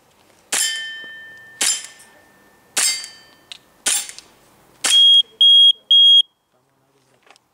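Five airsoft pistol shots about a second apart, each a sharp crack followed by the ringing of a steel plate target hit by the BB. Near the end, three short high beeps from a shot timer.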